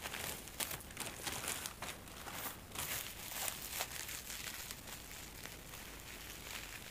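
Bubble-wrap packaging crinkling and rustling in the hands as it is handled and unwrapped: irregular soft crackles, busier in the first few seconds and sparser after.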